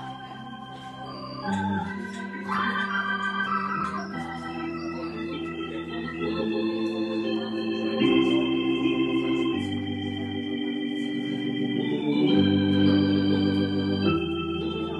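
Hammond-Suzuki XK3 organ through a Leslie 3300 rotating speaker, playing a slow gospel-style passage of sustained full chords over bass notes. The chords change about every one and a half to two seconds.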